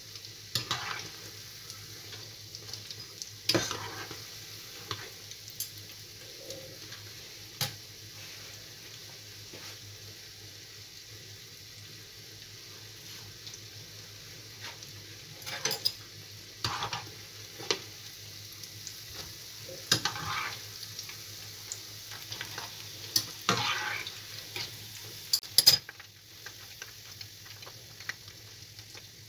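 Rosquillas (orange-flavoured dough rings) deep-frying in a pan of hot oil: a steady sizzle, broken by a few short knocks and clinks against the pan. The sizzle eases slightly near the end.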